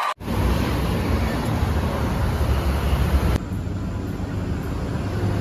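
Heavy road vehicle, a truck or bus, running with a low engine rumble and road noise; the sound changes abruptly about three and a half seconds in.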